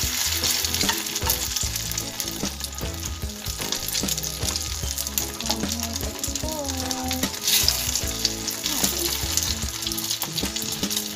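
Egg-dipped tikoy (sticky rice cake) slices frying in hot oil in a small pan, sizzling and crackling steadily as fresh slices are laid into the oil with tongs.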